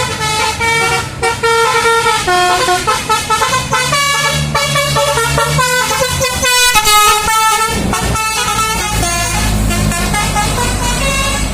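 A bus's basuri telolet horn, a multi-tone musical air horn, playing a fast tune of stepped notes that change several times a second, with a low engine hum underneath.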